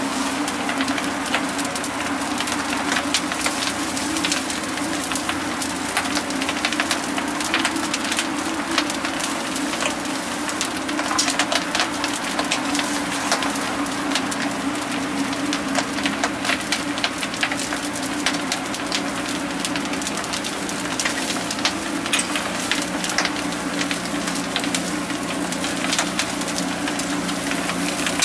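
Straw fire burning hard under a grill of hagfish, crackling and popping continuously, over a steady low hum.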